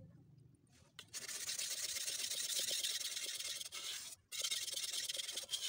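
Steel blade of a Pirge bullnose butcher knife pushed back and forth across a wet whetstone: a steady gritty scraping that starts about a second in, breaks off briefly near four seconds, then goes on.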